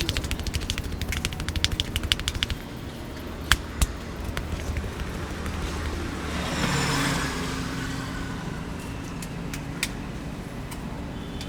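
Massage hands tapping rapidly and evenly on a head for about two and a half seconds, then two sharp clicks. Later a passing vehicle's noise rises and fades, with low steady road traffic after it.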